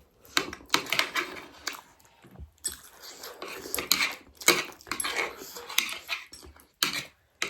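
Eating noises from a plate of instant noodles: repeated slurping and mouth sounds, with steel chopsticks clicking against the plate.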